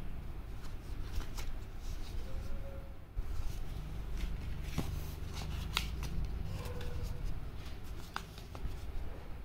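Paper sample sachets rustling and crinkling as they are handled in a cardboard box, with scattered light crackles and taps over a low rumble.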